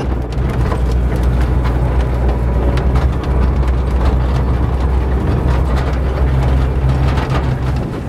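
Engine of an open-sided tourist truck running steadily while driving over a sandy track, with scattered knocks from the ride. The engine sound cuts off near the end.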